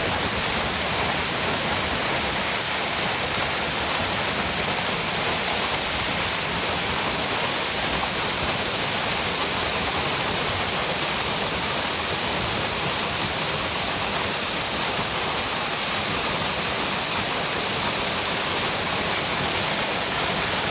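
A waterfall's water falling and rushing: a loud, steady, even noise with no breaks.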